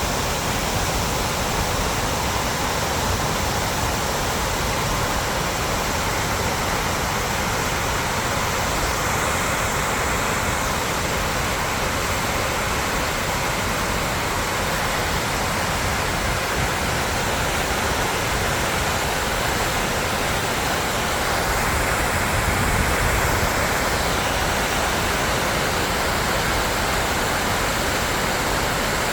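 Fosslaug waterfall rushing: a steady, unbroken noise of falling water, a little louder for a couple of seconds about three-quarters of the way in.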